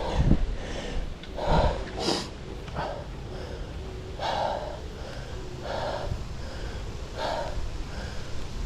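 A cyclist's heavy breathing, a hard breath every second or so, over a low rumble of wind on the microphone.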